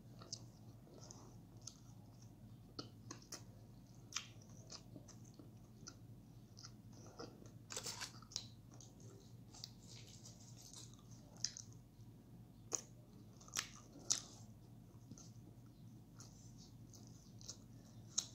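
Close-miked chewing and mouth smacking of someone eating hot cakes (pancakes), with a run of short wet clicks and a few sharper smacks, over a faint steady low hum.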